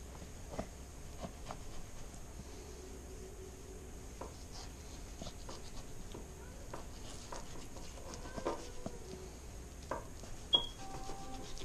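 Fillet knife scraping and slicing along a pike fillet to take off the skin, over plastic cling wrap: a run of short, scratchy strokes. A brief high squeak about ten and a half seconds in.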